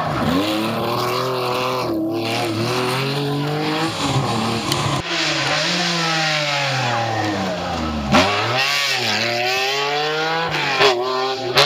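Historic rally car engines revving hard on full throttle. The pitch climbs and drops again and again with the gear changes, and there are a couple of sharp cracks in the second half.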